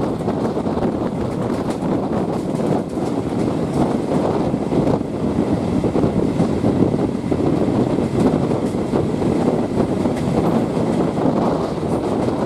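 Steady rush and rumble of a train running along the track, heard from on board, with wind on the microphone.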